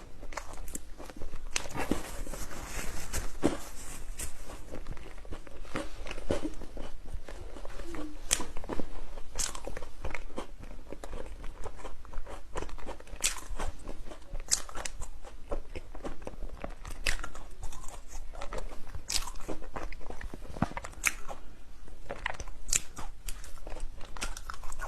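Close-miked eating: a person biting and chewing crunchy food, with irregular sharp crunches and crackles and wet chewing between them.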